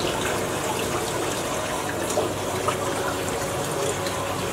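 Steady splashing, running water in a large aquarium tank as a plastic fish bag is held down in the water, with two small splashes a little past halfway.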